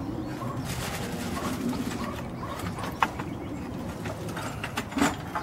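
Chainsaw flywheel turned slowly by hand, with a couple of light clicks as it catches and hangs up partway round; something is sticking inside the engine. A bird cooing in the background.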